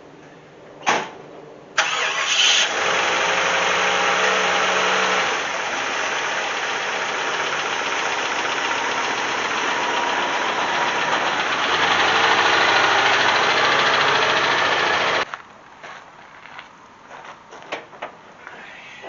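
Jeep Grand Wagoneer's AMC 360 V8, fed by a new Motorcraft 2100 carburetor, starts just under two seconds in and runs at a high idle for about thirteen seconds, then cuts off suddenly. A sharp click comes about a second in, before the start.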